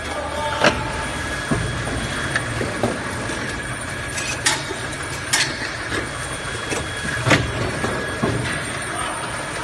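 Inline capping machine running on 5-litre plastic engine oil bottles: a steady mechanical hum with irregular sharp clacks, about one a second.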